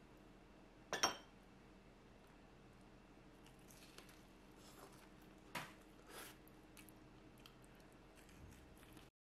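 Faint room hum broken by a few sharp clicks and clacks of tableware being handled on a ceramic tray. The loudest clack comes about a second in, and two more come a little past halfway.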